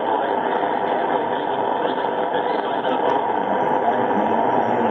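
Shortwave AM reception of the IRRS broadcast on 9640 kHz: steady hiss and static, with the programme audio only faintly audible beneath it.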